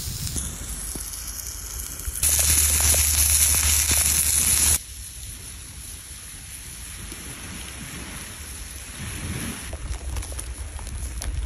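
Steak sizzling on a hot steel plate over a wood fire, a steady crackling hiss. About two seconds in, a much louder stretch of hiss comes in, then cuts off abruptly after a few seconds, leaving a quieter steady hiss.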